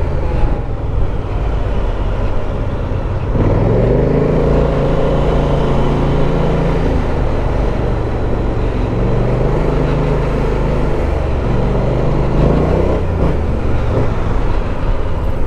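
BMW C650GT maxi-scooter's parallel-twin engine running under way, its revs rising about three seconds in and again near the end as it accelerates, with a steady rush of wind and road noise.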